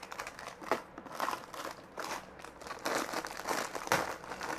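Packaging crinkling and rustling as it is handled, in irregular crackles with a few sharp clicks.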